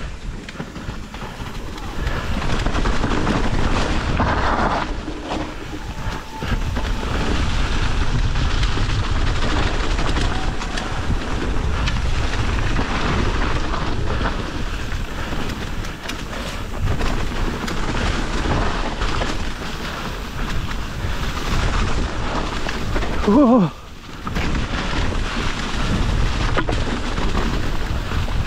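Mountain bike descending a wet, muddy trail: tyres squelching and spraying through slop and the bike rattling, under steady wind buffeting on the microphone. A short falling squeal about three-quarters of the way through.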